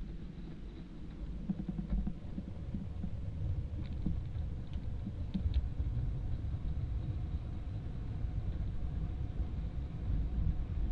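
Drift trike rolling downhill on wet asphalt: a low, uneven rumble of the wheels on the road, with a few light clicks about four to five and a half seconds in.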